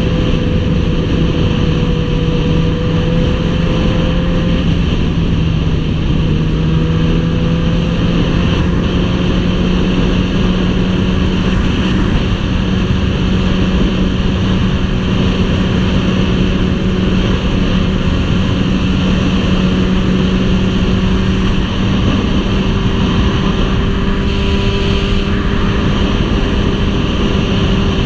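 2003 Yamaha R6's inline-four engine running steadily at cruising speed, its tone creeping up slightly in pitch over the first several seconds and then holding, under a constant rush of wind and road noise.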